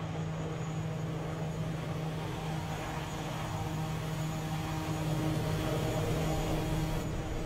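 Steady low aircraft-like hum with rushing jet noise that grows louder about halfway through: the sound design for a huge craft hovering overhead.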